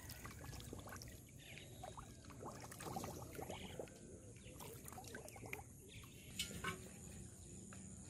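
Faint, irregular splashing of catfish writhing in shallow water over muddy grass, with a few sharper splashes late on.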